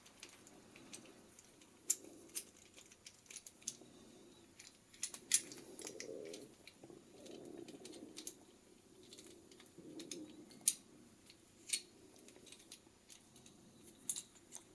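SmallRig metal clamp mount being handled and worked by hand: scattered sharp metallic clicks and taps, about ten over the stretch, with soft rubbing in between.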